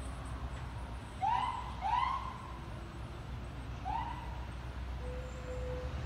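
A fire engine's Whelen electronic siren gives three short whoops as the truck pulls away: two close together, then one more about two seconds later. A steady low rumble of engine and traffic runs underneath.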